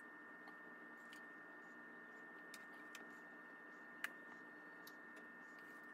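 Faint clicks of a metal spoon against a stainless steel mixing bowl while scooping mashed potato filling, a few seconds apart, the sharpest about four seconds in, over a faint steady hum.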